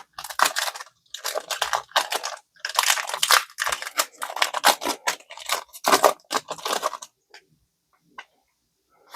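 Foil wrapper of a Pokémon trading card booster pack being torn open and crinkled: a run of crackling rustles that stops about seven seconds in, followed by a few faint ticks.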